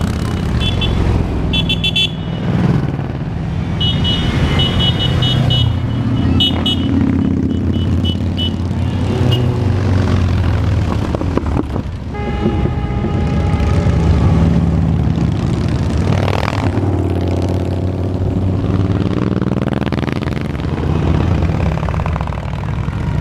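Motorcycle engines rumbling steadily as bikes ride past, with rapid short high toots in the first several seconds and a horn sounding about halfway through. Near the end an engine rises in pitch as a motorcycle passes close by.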